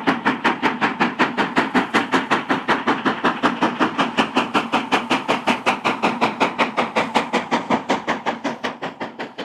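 Steam locomotive exhaust chuffing in quick, even beats, about six a second, fading away near the end.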